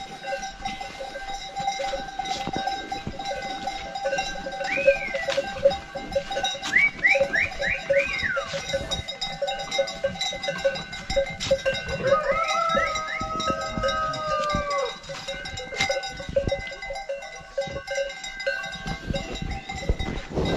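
Bells on a herd of goats ringing continuously as the animals move about. A few short high calls come around five to eight seconds in, and about twelve seconds in a goat gives one long bleat lasting a couple of seconds.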